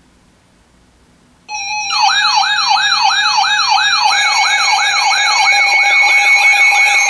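Electronic siren starting suddenly about a second and a half in: a fast, repeating up-and-down yelp, roughly three sweeps a second, layered over steady high tones, and louder half a second after it starts.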